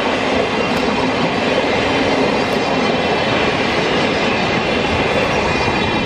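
Old-type passenger coaches of a steam-hauled train rolling past close by, a steady loud rumble of steel wheels on the rails.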